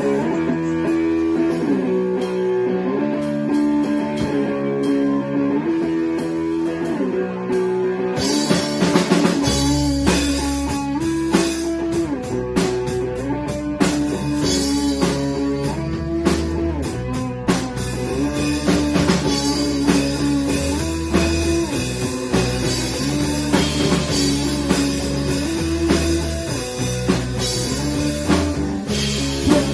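Rock band playing: a guitar figure repeats on its own for about eight seconds, then drums with cymbals come in, followed shortly by a low bass line, and the full band plays on.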